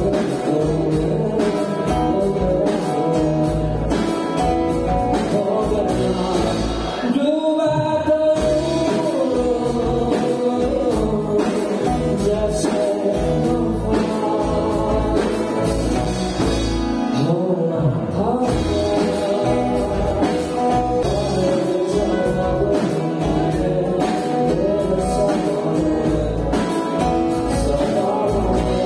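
Live band playing a song: a male singer over acoustic and electric guitars, bass guitar and a drum kit, with a steady beat.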